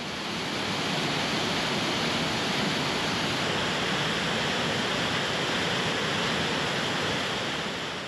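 Steady rushing of the Maligne River's glacial water pouring through the narrow canyon in waterfalls and cascades, swelling up in the first second and easing near the end.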